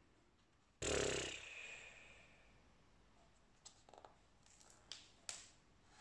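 A short, loud burst of noise about a second in that fades out over a second, then a few light taps and paper sounds as a hardback picture book is closed and turned over on a wooden table, with a sharper knock near the end.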